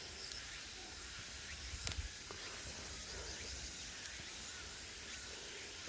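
Outdoor natural ambience: a steady, even hiss over a low rumble, with one short click about two seconds in.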